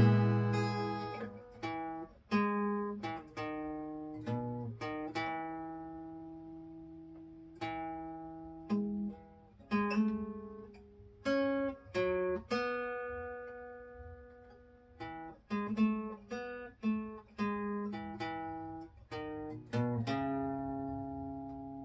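Acoustic guitar playing an instrumental passage between sung verses: single plucked notes and strummed chords, each ringing out and fading before the next.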